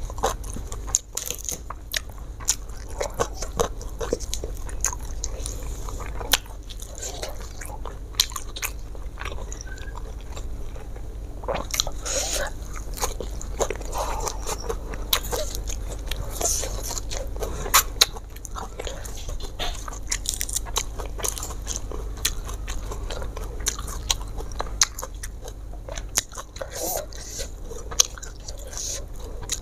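A person eating a meal of rice, sambal tuna and raw petai, cucumber and lettuce: chewing and biting, with many short, sharp crunches at an irregular pace.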